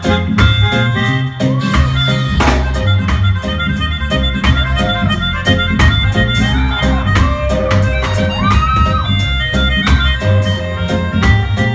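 Live reggae band playing an instrumental passage: a deep bass line and steady drum-kit hits under a sustained lead instrument whose notes bend up and down.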